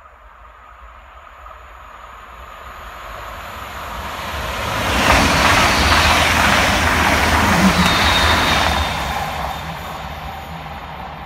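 Allegro (class Sm6) high-speed electric train passing at speed. A rushing rumble builds over about five seconds as it approaches, is loudest for about four seconds as the cars sweep by, then fades as it recedes.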